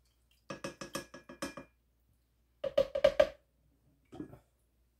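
A ladle stirring thick puréed liver in a metal saucepan, knocking against the pot in two quick runs of rapid knocks, then once more near the end.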